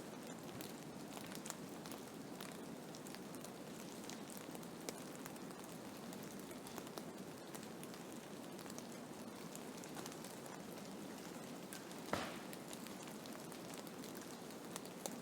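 Blizzard ambience: a steady rushing snowstorm noise dotted with frequent small ticks, and one louder click about twelve seconds in.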